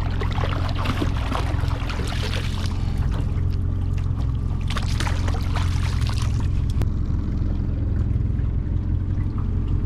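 Water splashing and trickling as a freshly bled Chinook salmon is swished and rinsed in the sea over the side of a small aluminum boat, in two spells, the first right away and the second about five seconds in. Under it runs the steady low drone of the boat's motor at trolling speed.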